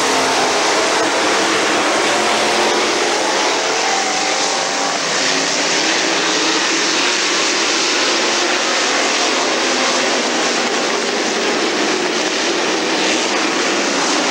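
A pack of street stock race cars running at speed, their engines blended into a loud, steady din with faint engine tones rising and falling as cars pass.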